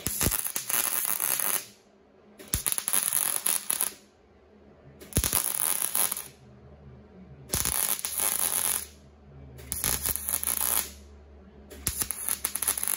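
MIG welder stitch-welding a steel rocker panel repair: six short bursts of sputtering arc crackle, each a second or so long, each starting with a sharp click, with about a second's pause between welds.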